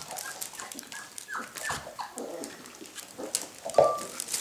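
Young puppies whining and yelping in short, high, falling cries, the loudest a sharp yelp near the end, with rustling and scuffling as they crawl through a fabric play tunnel.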